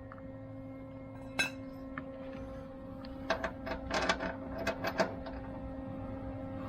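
A steady electrical hum under a run of light, sharp metallic clicks and taps that come thickest between about three and five and a half seconds in.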